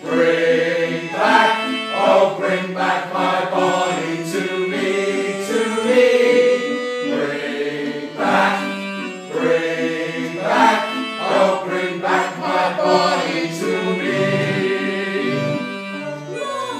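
An accordion playing a slow tune, its bellows holding sustained chords, with a voice singing the melody along with it.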